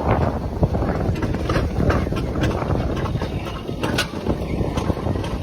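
Steady rumble and rattle of a moving track ride, with wind buffeting the microphone and scattered sharp clicks.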